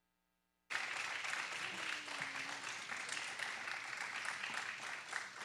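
Audience applauding: dense, even clapping from a crowd that cuts in abruptly under a second in and holds steady.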